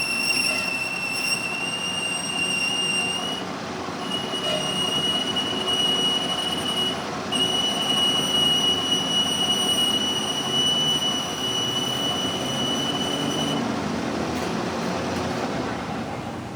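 Lathe cutting tool squealing against metal in a steady, high-pitched whine over the running machine. The squeal drops out briefly twice and stops near the end while the machine keeps running.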